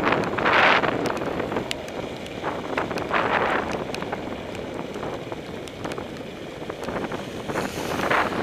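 Wind buffeting the microphone of a bicycle-mounted action camera while riding, in gusts near the start, about three seconds in and near the end, over steady road noise with scattered light ticks and rattles.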